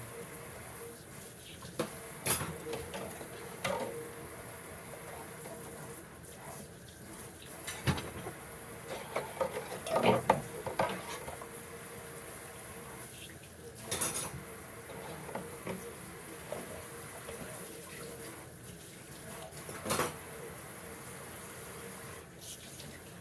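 Scattered clinks and knocks of pots, pans and utensils being handled, with a busier run of clatter about ten seconds in, over a faint steady hum.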